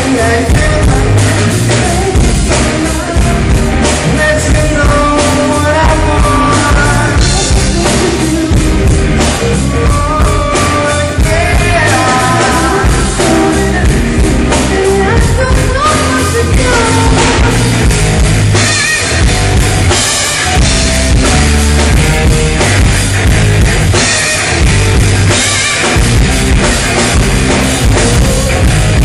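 Live rock band playing a song at full volume, with the drum kit prominent.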